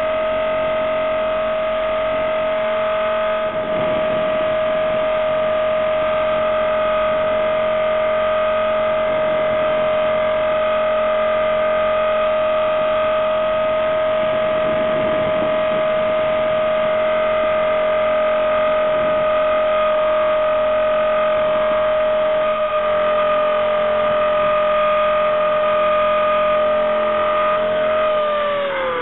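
Blade 400 electric RC helicopter's motor and rotor whine, heard from on board, holding one steady pitch in flight. Near the end the pitch falls as the rotor spools down after touchdown.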